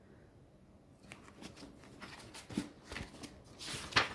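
Pages of a hardcover book being turned and handled, paper rustling in quick strokes after about a second, with the loudest page flip near the end.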